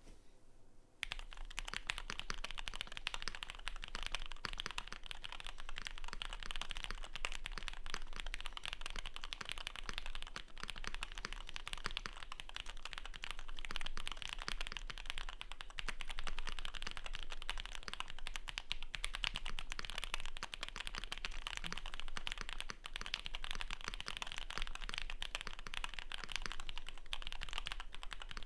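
Continuous fast typing on a Keychron Q6 mechanical keyboard with lubed SP Star Meteor White V3 linear switches, a steel plate, tape mod and PBTFans Vior PBT keycaps: a dense, unbroken stream of key clacks, starting about a second in.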